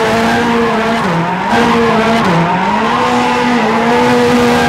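Drift car spinning donuts: engine held at high revs with tyres squealing, the engine note dipping briefly a few times as the throttle is worked.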